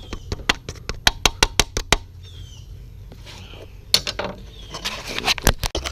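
Quick runs of sharp metallic clicks from hand tools working loose bolts on a car body, several clicks a second, pausing in the middle and starting again about four seconds in.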